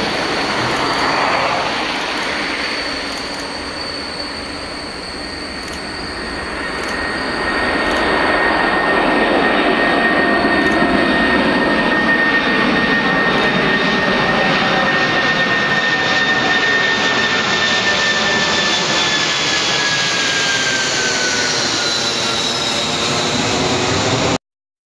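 Boeing 747-400 freighter's four jet engines at takeoff power as it climbs away: a steady jet roar that dips a few seconds in and swells again, with a high whine that slowly falls in pitch near the end. The sound cuts off suddenly.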